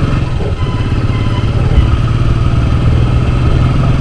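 Motorcycle engine running steadily as the bike is ridden along the road, its exhaust beat coming through as a fast, even pulse.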